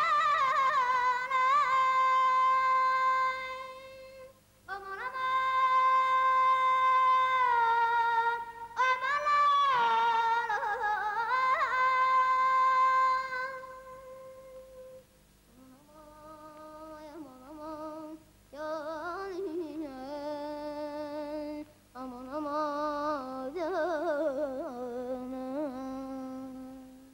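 Wordless vocal improvisation: a solo voice holding long, high notes with wavering trills and ornaments. About halfway through it drops to a lower register and goes quieter, singing shorter phrases.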